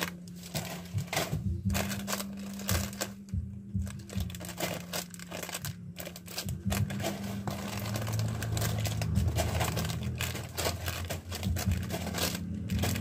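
Plastic chip and snack packets crinkling and rustling as they are lifted out of a cardboard box and handled, with many short crackles throughout.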